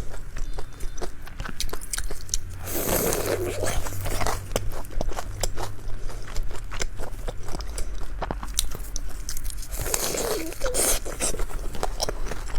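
Close-miked chewing and biting of a deep-fried glutinous-rice ball with a juicy meat filling: crunching of the fried crust and wet mouth clicks, with two louder stretches of bites about three seconds in and around ten seconds.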